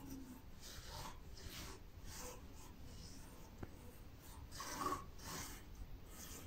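Hands pressing and rubbing glitter into a disc of slime on a wooden table: a series of soft, faint swishing strokes, the strongest about five seconds in.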